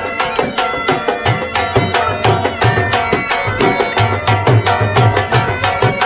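Folk-style music: a fast, steady hand-drum beat under a held melody line.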